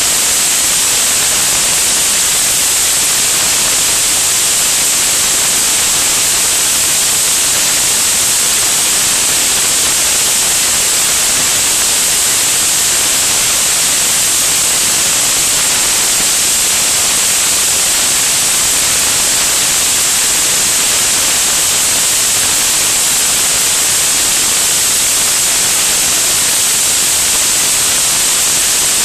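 Loud, steady rushing hiss of airflow over a camera mounted under the wing of a small airplane in flight, with no engine tone standing out and no change throughout.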